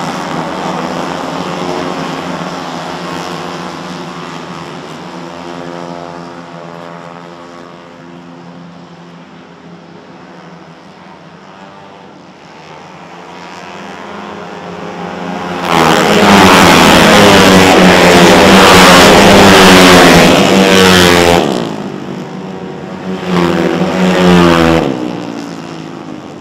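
Four-stroke automatic Vespa racing scooters running around a circuit. The engines fade away over the first dozen seconds, then one passes close and loud for about six seconds from a little past the middle, and a second, shorter pass follows near the end.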